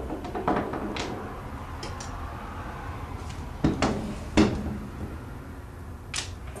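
Several sharp clicks and knocks of small metal rifle parts being handled while a muzzle device is fitted, the loudest pair around four seconds in, over a steady low hum.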